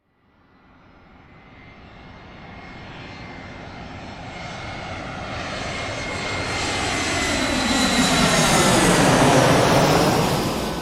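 Airplane approaching and flying past, its engine noise swelling from silence to a peak about nine seconds in, then starting to fade, with a thin high whine over the rushing noise.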